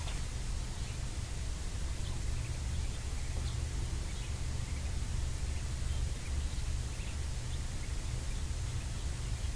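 Ducklings peeping faintly in short, scattered chirps, over a steady low rumble and hiss.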